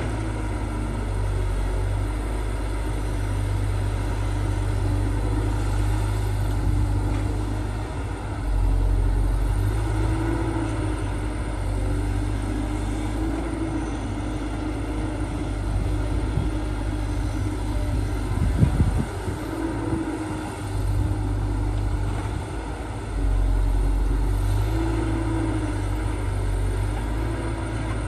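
Heavy earthmoving machine's diesel engine running steadily, growing louder under load about a third of the way in and again near the end. About two-thirds of the way through there is a brief clatter of metallic knocks.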